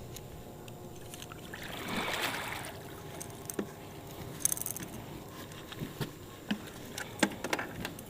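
A short rush of splashing water about two seconds in, then scattered knocks and clicks against the boat as a hooked catfish is brought aboard.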